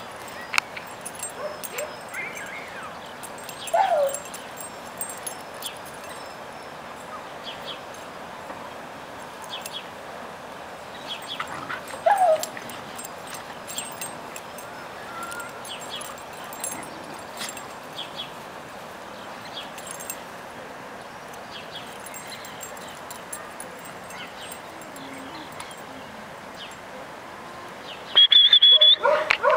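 Bird-dog puppies yipping and whimpering as they play-wrestle, with short falling yelps about four and twelve seconds in. A loud, high-pitched held cry comes near the end.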